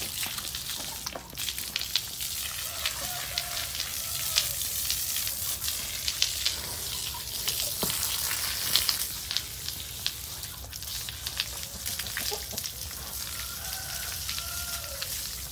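Water from a garden hose spraying and spattering onto a water buffalo's hide and the wet concrete: a steady hiss with many small splashes.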